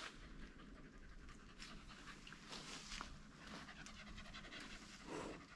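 A dog panting faintly, a run of quick, soft breaths.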